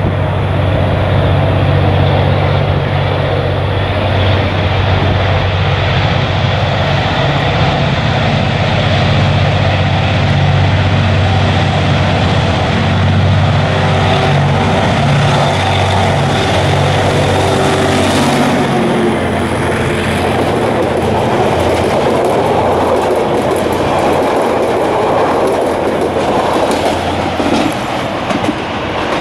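EMD G22 diesel-electric locomotive passing close by, its engine running with a deep steady hum. About two-thirds of the way through, the sound changes to the rumble of the passenger coaches rolling past, with clickety-clack of wheels over the rail joints as the train moves away.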